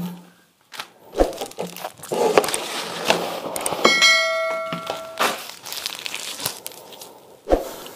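Rustling and light knocks as packaging and a phone in its plastic sleeve are handled. About four seconds in, a bright bell-like chime rings for about a second: the ding of a subscribe-button animation.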